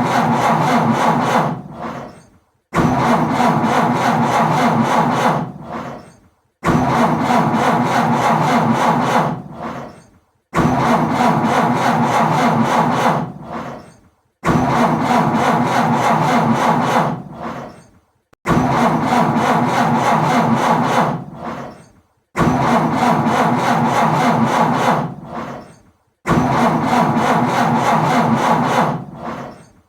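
A car engine being cranked on its starter over and over without catching: a car that won't start. There are about eight tries, one every four seconds or so. Each starts sharply, grinds for about three seconds and then winds down.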